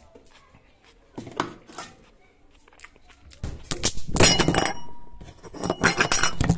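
Hard items and glass clinking and knocking together as things are moved about inside a refrigerator, with short ringing tones from struck glass. A few knocks come about a second in, then two busy spells of clatter in the second half, the first the loudest.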